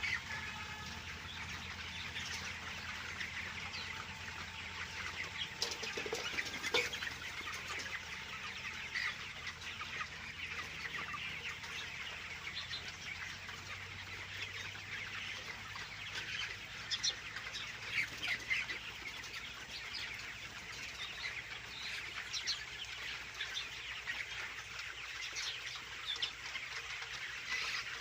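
A large flock of month-old broiler chickens chirping and clucking all at once in a dense, continuous chatter, over a faint steady low hum.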